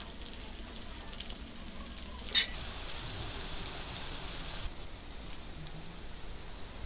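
Whole garlic cloves and dried red chillies frying in hot oil in a karahi: a steady crackling sizzle. About two and a half seconds in there is one sharp click, after which the sizzle is louder for a couple of seconds and then drops off suddenly.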